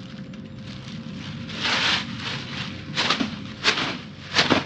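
Plastic trash bag rustling and crinkling as it is opened, with a longer rustle about two seconds in and three short sharp crinkles near the end.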